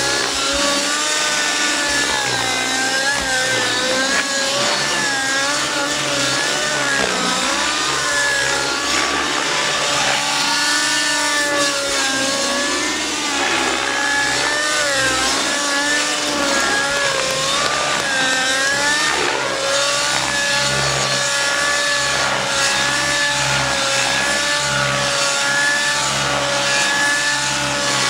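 Outrage Velocity nitro RC helicopter flying aerobatics, its glow engine and rotor note rising and falling over and over as the manoeuvres load and unload it. The note holds steadier near the end, with the helicopter low over the ground.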